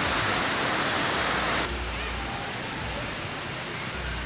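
Steady rush of water from a waterfall. About a second and a half in it drops in level and loses much of its hiss.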